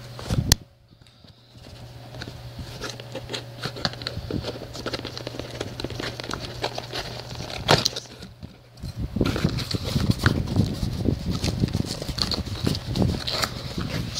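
Cardboard shipping box being opened by hand: scraping, tearing and rustling of cardboard with sharp clicks, loudest two about half a second and nearly eight seconds in, and denser rustling in the second half. A fan hums steadily underneath.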